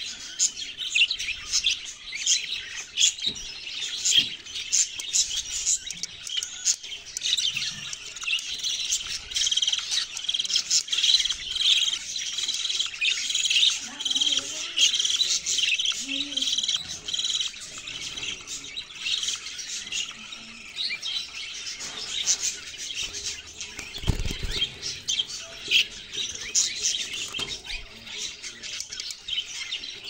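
Budgerigars chirping in a dense, continuous chatter of high chirps, busiest in the middle. About 24 seconds in, a single low thump sounds under the chirping.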